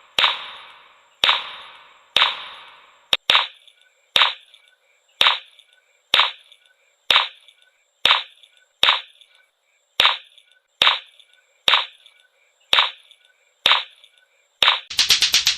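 Lato-lato clacker balls: two hard balls on a string clacking against each other about once a second, each clack ringing briefly. Near the end they switch to rapid continuous clacking, many strikes a second.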